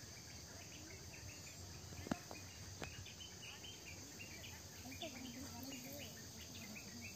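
Insects chirping in a steady high buzz, with a run of short repeated chirps joining from about three seconds in. A single sharp click about two seconds in is the loudest sound.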